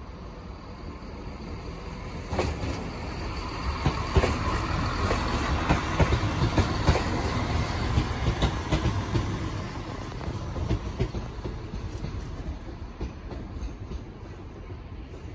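Class 170 Turbostar diesel multiple unit passing by. The engine and rail rumble builds up, peaks with a rapid run of clicks as the wheels cross rail joints, then fades as the unit draws away.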